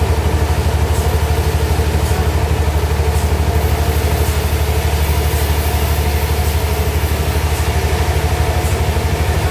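A sawmill's engine running steadily, with a fast, even throb.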